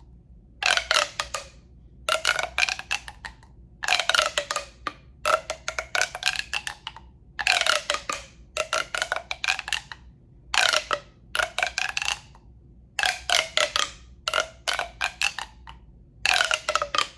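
Sounds made with a tube: about a dozen bursts of rapid clicking, each about a second long with short pauses between. Each burst carries a hollow resonance that rises in pitch as it goes.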